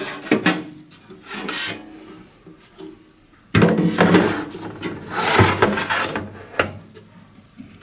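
Handling noise: a gloved hand rubbing and scraping against the tissue processor's stainless-steel panels and black plastic handles, with a couple of sharp knocks right at the start and two longer, louder scrapes past the middle.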